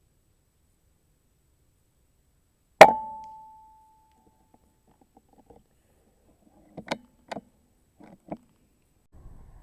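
An air rifle fires once: a single sharp crack with a short metallic ring that fades over about a second and a half. A few seconds later come four small clicks.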